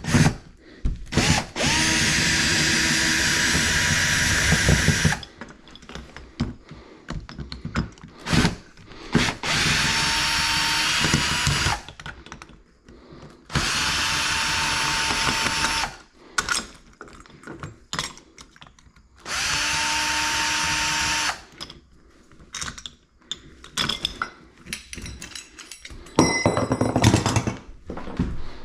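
Power drill running in four separate bursts of two to three seconds, each at a steady whine, with knocks and handling clatter between them.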